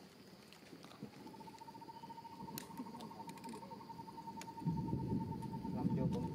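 An insect trilling steadily: a fast, even run of pulses on one high pitch that starts about a second in and keeps going. A few sharp ticks sound in the middle, and about two-thirds of the way through a louder low rumble joins the trill.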